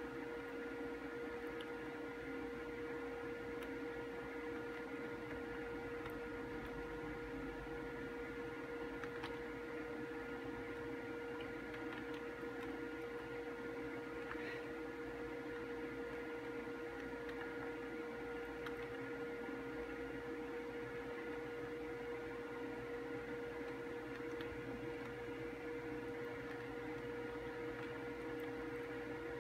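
A steady hum with one strong held tone, unchanging throughout, with a few faint ticks.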